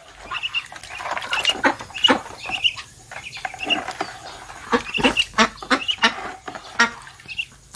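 Young ducks calling over and over, with short high peeps and quacks several times a second.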